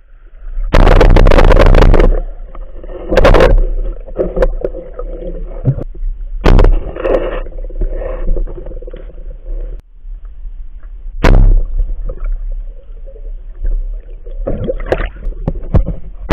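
Underwater sound picked up by a diver's camera: water rushing and gurgling past the housing in several loud bursts of a second or so, over a steady churning, with a few sharp knocks.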